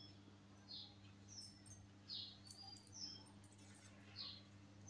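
Near silence: small birds chirping faintly, a short high chirp every half second or so, over a low steady hum.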